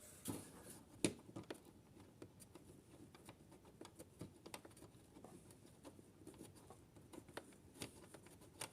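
Faint, scattered clicks and light metal taps of hand tools and lock parts being handled while a loosened nut is worked off, with two sharper knocks in the first second or so.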